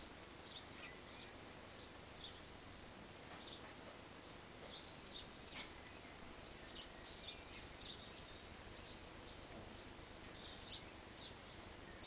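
Faint birdsong: short, high chirps coming several times a second, over a steady hiss.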